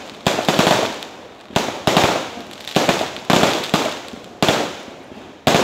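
Festival fireworks bursting overhead in quick succession, about a dozen sharp bangs at irregular spacing, roughly two a second, each trailing off before the next.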